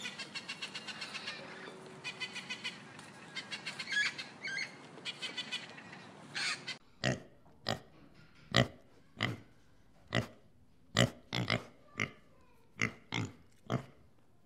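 A rainbow lorikeet chattering in rapid runs of short, high clicking notes. About seven seconds in it gives way to a pig grunting in short, separate grunts, about one or two a second, as it roots with its snout on the ground.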